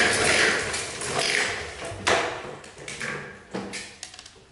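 Hard plastic toy parts being handled and moved: a scraping, rustling noise that fades away, with a few sharp clicks and knocks about two, three and three and a half seconds in.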